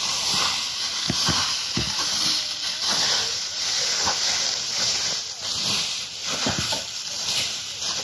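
Forest fire burning through dry leaf litter: a steady hiss with scattered sharp crackles.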